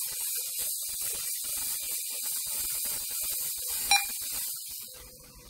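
Roco H0 Mallet model locomotive running on roller test stand rails, its motor and gear drive giving a steady high whirring hiss. A single sharp click comes about four seconds in, and the running sound dies away about a second later.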